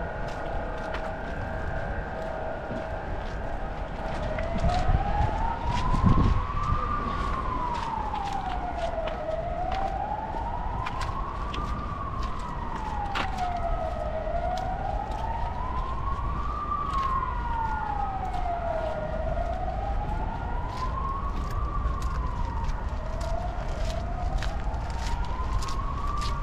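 A siren wailing, its pitch rising and falling slowly about every five seconds, starting a few seconds in, over a steady low rumble of city noise. A brief louder low rumble comes about six seconds in.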